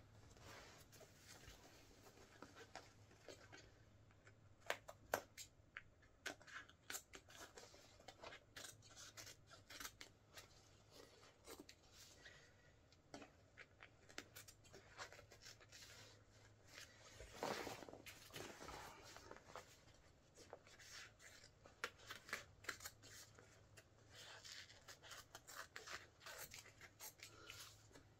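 Scissors snipping through the fabric of a Wellensteyn Schneezauber jacket: many short, quiet, irregular cuts, with one longer, louder cut a little past the middle.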